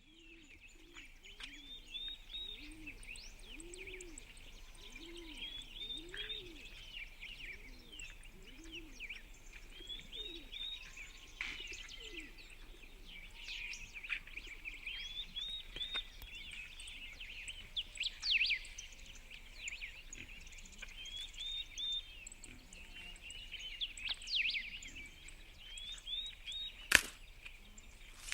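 Birds chirping and singing in short, repeated high phrases. Lower calls rise and fall under them for the first ten seconds or so, and a single sharp crack comes near the end.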